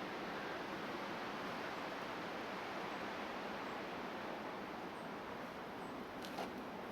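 Steady, even background hiss with no distinct source, and a couple of faint clicks a little after six seconds in.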